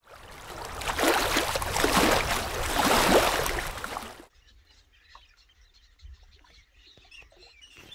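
Rushing water sound effect that swells for about four seconds and cuts off suddenly, then gives way to faint outdoor quiet with a few small knocks.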